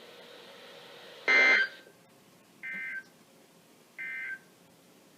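Emergency Alert System end-of-message data bursts from NOAA Weather Radio: three short bursts of warbling two-tone digital data about 1.4 s apart, the first louder than the other two, over faint radio hiss. They mark the end of the alert message.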